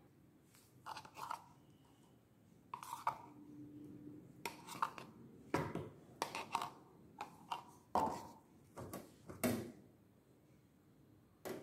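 Steel spoon scraping and clinking against a steel bowl and stainless steel plate while scooping thick coconut chutney onto the plate: a run of about a dozen short clinks and scrapes with a light metallic ring.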